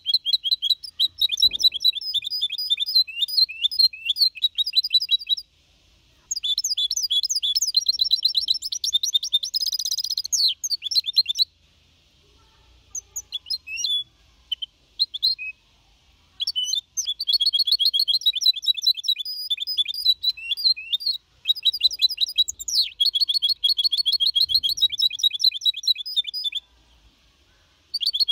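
A four-and-a-half-month-old mixto, a goldfinch hybrid, singing a clean Copia Málaga song. It sings long runs of fast, high twittering notes in phrases broken by short pauses, with only a few scattered notes in a longer gap about halfway through.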